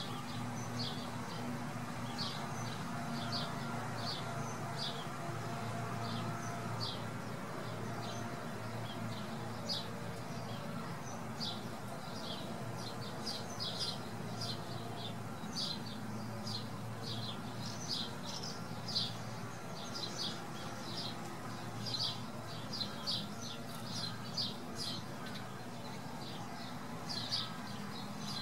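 A bouncy castle's electric blower runs steadily, inflating the castle, while small birds chirp over it in quick short calls, more often in the second half.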